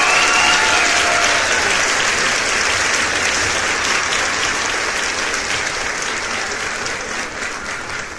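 Crowd applause, steady at first and slowly fading away.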